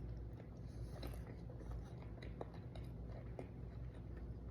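A person chewing a mouthful of fried chicken tender, with faint small wet clicks and crunches of the breading.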